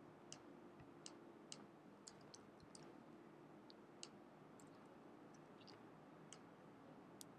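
Faint, irregular clicks of a computer keyboard and mouse during code editing, about a dozen scattered through the stretch, over near-silent room tone.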